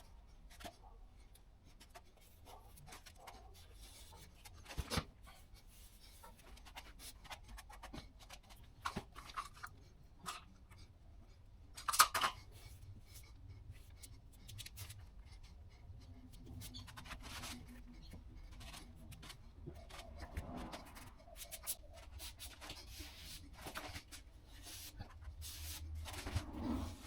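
Quiet, scattered clicks and rubbing sounds of hand work with tools and materials, with one sharper click about twelve seconds in.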